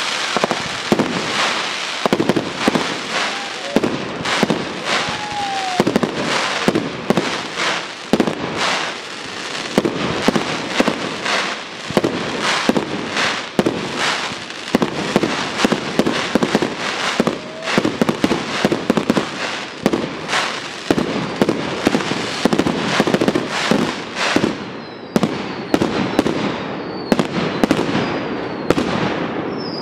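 Aerial fireworks display: a rapid, continuous run of bursts and bangs over dense crackling. A couple of short falling whistles come a few seconds in, and high whistles rise and fall near the end.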